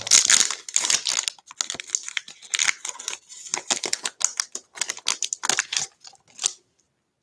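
Wrapper of a baseball card pack being torn open and peeled off the stack of cards, a run of irregular crinkling and crackling that stops about six and a half seconds in.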